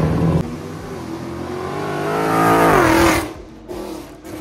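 A car engine accelerating, its pitch and loudness climbing steadily for about two and a half seconds, then the pitch dips and the sound drops away sharply about three seconds in.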